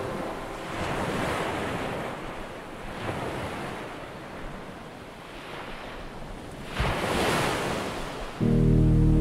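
Ocean surf: waves washing in slow swells that rise and fall over a few seconds, the biggest about seven seconds in. Music with sustained tones comes in loudly near the end.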